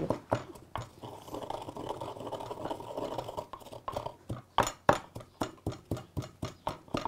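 Wooden pestle pounding in a small wooden mortar: quick, even knocks about four a second, starting about four seconds in. Before that only a few faint knocks.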